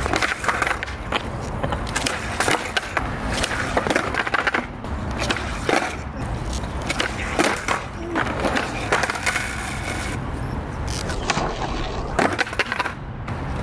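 Skateboard on a concrete flat: wheels rolling, with repeated sharp clacks as the tail pops and the board flips and slaps back down on the ground during laser flip (360 heelflip) attempts.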